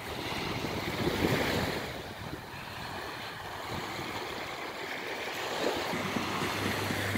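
Small waves washing onto a sandy shore, mixed with wind buffeting the microphone; the sound swells about a second in. A steady low hum comes in near the end.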